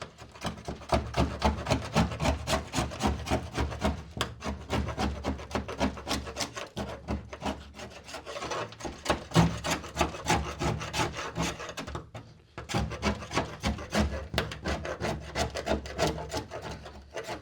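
Hand scraper with an unsharpened blade scraping old undercoating off a Volkswagen chassis in rapid repeated strokes, with brief pauses about 4, 7 and 12 seconds in.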